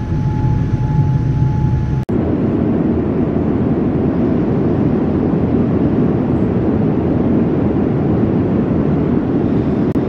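Steady roar of a Boeing 787-9 airliner heard from inside the passenger cabin. There is an abrupt cut about two seconds in. Before the cut a thin steady tone rides over the rumble; after it there is an even rushing noise.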